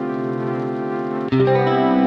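Background music: sustained guitar-led chords with effects, changing to new, louder chords about a second and a half in.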